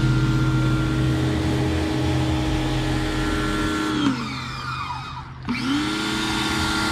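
Electric pressure washer running while its wand sprays water. The motor cuts off about four seconds in, winding down, then spins back up a second and a half later.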